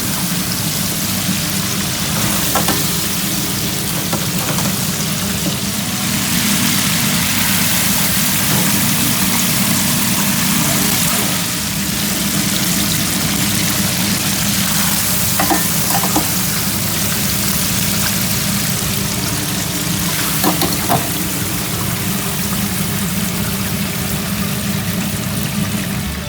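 Starch-coated chicken leg pieces (karaage) deep-frying in hot oil: a steady, loud sizzle over a low steady hum, with a few faint clicks.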